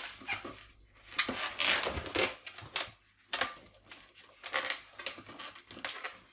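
Long latex modelling balloon rubbed and twisted by hand, the rubber squeaking and scraping in an irregular run of short strokes with brief pauses.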